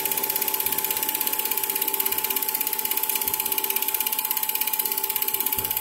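Old home-movie film projector running, its film-advance mechanism making a rapid, even clatter over a steady motor hum.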